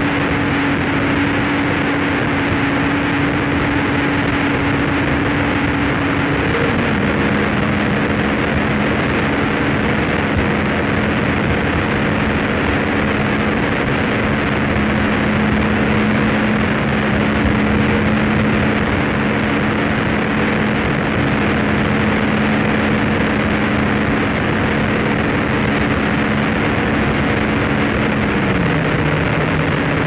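Harsh noise music: a dense, unchanging wall of noise with a steady low drone beneath it. The drone steps down in pitch about seven seconds in, when a second, higher tone also comes in, and it steps down again near the end.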